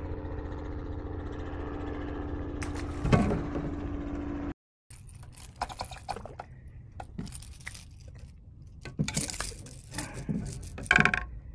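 A steady low rumble with one louder brief sound about three seconds in, cut off abruptly; then scattered light clicks and rattles of a spinning reel and fishing tackle being handled.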